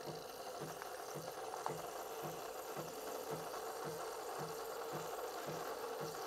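De'Longhi PrimaDonna Soul bean-to-cup espresso machine running through a latte macchiato cycle, frothing milk into the glass and then starting to pour espresso. It makes a steady low hum with a light hiss and a soft pulse about twice a second.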